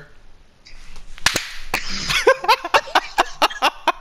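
A sharp slap, a hand striking a face, cracking twice about a second in. It is followed by a rapid run of clicks mixed with short voice-like cries.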